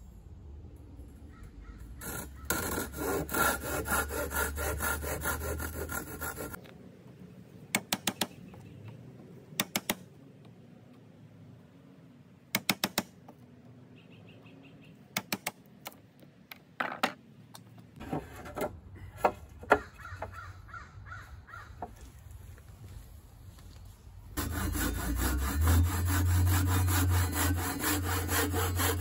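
Handsaw cutting through a wooden strip in quick back-and-forth strokes, then a hammer striking a wood chisel in short groups of sharp taps. The sawing starts again near the end.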